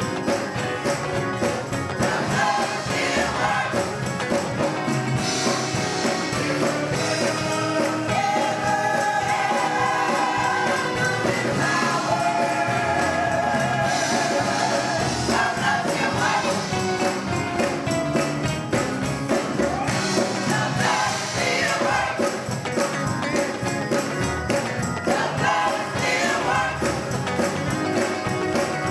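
Gospel choir singing with instrumental accompaniment, a tambourine or bells jingling through it.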